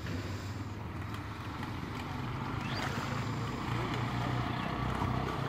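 An unseen motor drones steadily at a low pitch, growing slightly louder toward the end, over light splashing of hands groping in shallow muddy water.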